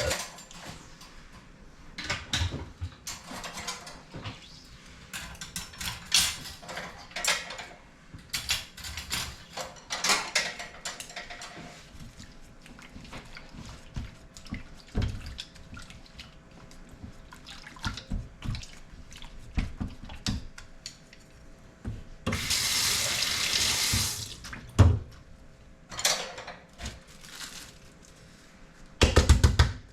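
Washing up at a kitchen sink: scattered knocks and clinks of items being handled, with the tap running briefly about three-quarters of the way through.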